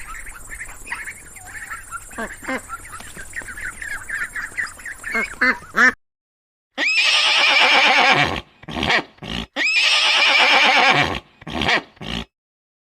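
Ducks quacking over a noisy background, then after a sudden cut and a short silence a horse neighs twice, each whinny about a second and a half long, with a few shorter bursts after.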